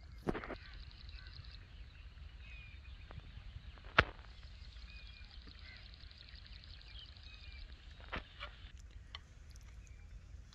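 Faint birds chirping and calling in the background. About four seconds in comes a single sharp knock of a clay bowl being set down, and near the end a few lighter clicks of a spoon against a clay dish.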